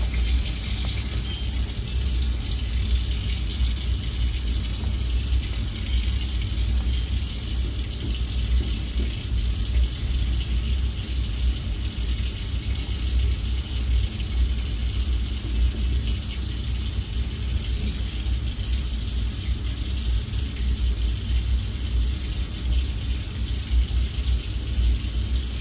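A steady low hum with a high hiss over it, unchanging and without separate knocks or clicks.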